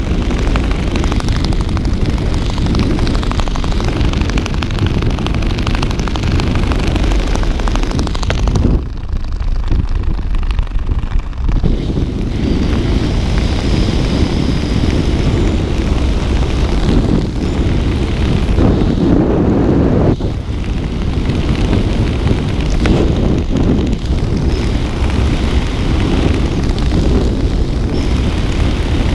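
Wind rushing over a skydiver's camera microphone: a loud, steady buffeting roar that eases briefly about nine seconds in.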